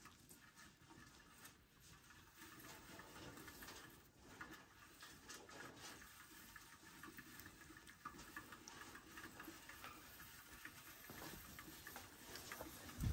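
Near silence with faint scattered light ticks and rustles, and a short low thump right at the end.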